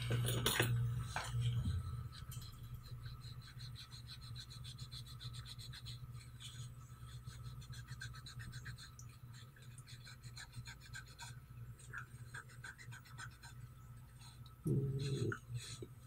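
Faint, rapid scratchy scrubbing as the solder pads at an iPad Mini's charging-port connector are cleaned with isopropyl alcohol, over a steady low hum. A sharp click at the very start.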